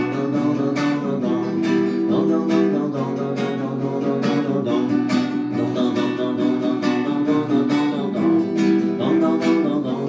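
Instrumental break of an upbeat dance song, led by a strummed guitar over a steady beat.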